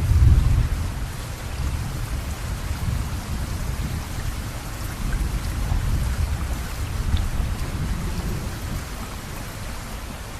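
Steady rain hissing, with a low rumble of thunder that is loudest at the start and slowly dies away.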